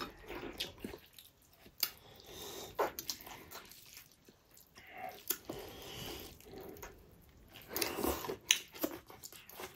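Two people eating by hand: chewing, biting and lip-smacking, with irregular wet clicks. A busier run of smacks comes about eight seconds in.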